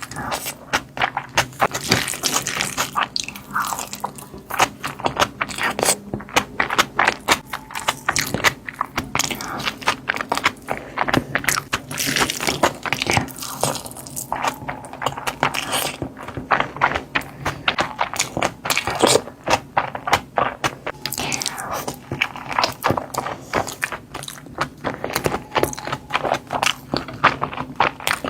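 Close-miked ASMR eating sounds of chicken curry and biryani rice being chewed: a dense, continuous run of quick mouth clicks and smacks.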